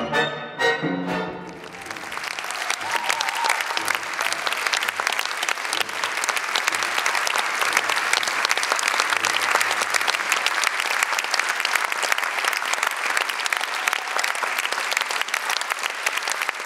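An orchestra plays a run of loud, evenly spaced chords that breaks off about a second and a half in. A theatre audience then applauds steadily.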